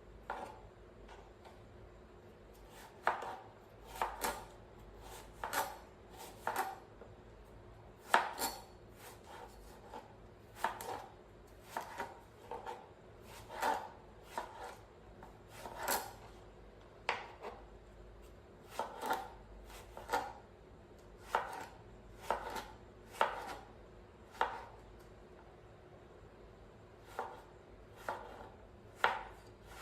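Repeated sharp knocks at uneven intervals, roughly one a second, over a faint steady hum.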